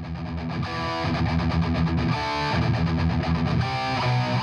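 Intro music led by distorted electric guitar playing chords that change every second or so.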